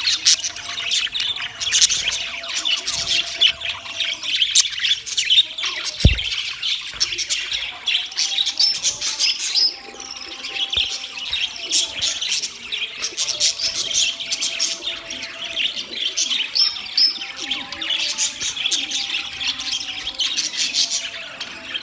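A group of budgerigars chattering and chirping without a break, in quick high warbles and squawks. About six seconds in there is a brief low thump.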